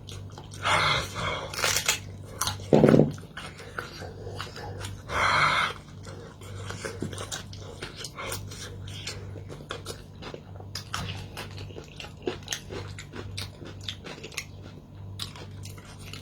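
Eating sounds: chewing and crunching, heard as many small clicks. A few louder short sounds come in the first six seconds, the loudest a low one about three seconds in.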